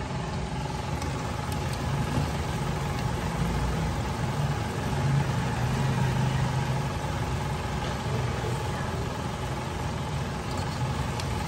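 Chicken pieces deep-frying in a pot of hot oil: a steady sizzle with a few faint pops, over a steady low hum.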